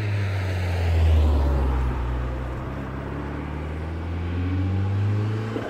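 Rally car engine running hard on a night special stage as the car drives past and away, the engine note loudest about a second in, easing off, then rising again near the end.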